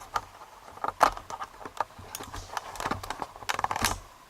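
Irregular small clicks and taps of metal being handled, as a padlock and its tools are worked at while trying to get the clip off the back of the lock; the sharpest clicks come about a second in and again near the end.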